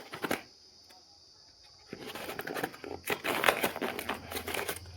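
Rustling and light clicks of a product box and its packaging being handled, quiet for a second or so, then a dense run of rustles and taps.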